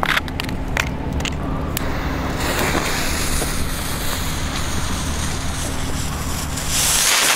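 Explode Crackling Bird firework flyers burning on the ground, a hiss of burning fuses and motors that swells sharply near the end as they spin up to lift off. A few sharp clicks come in the first two seconds.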